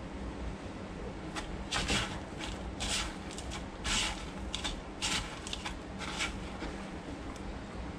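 A fish fillet being coated in a bowl of crushed crackers, the dry crumbs rustling in short, irregular bursts as a hand presses and turns it, over a low steady hum.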